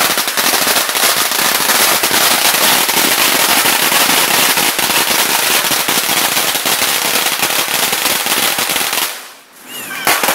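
A long string of firecrackers going off in a rapid, unbroken crackle of bangs, stopping abruptly about nine seconds in; one more pop follows near the end.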